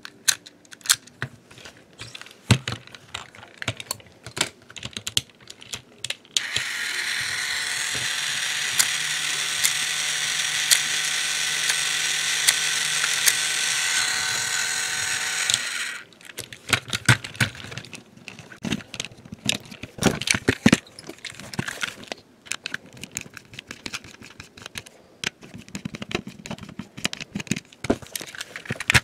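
Clicks from handling a plastic Trackmaster toy engine. About six seconds in, its battery motor switches on and runs for about ten seconds, a steady geared whir with light regular ticking as the wheels spin freely in the air. It stops suddenly and the clicking of handling resumes.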